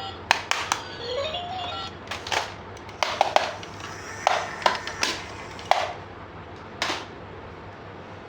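Hard plastic toy parts clicking and knocking together in a dozen or so sharp clicks, with a short electronic jingle that rises in steps about a second in.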